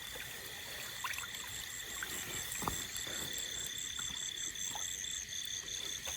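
Night insects calling: a steady high trill with a faster pulsing chirp of about five pulses a second that stops near the end. Faint trickling creek water and a few small clicks lie beneath.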